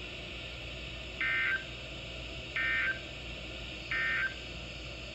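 Emergency Alert System end-of-message data tones: three short bursts of warbling, modem-like screech about 1.3 s apart, marking the end of the broadcast severe thunderstorm warning. A steady low hiss and hum runs underneath.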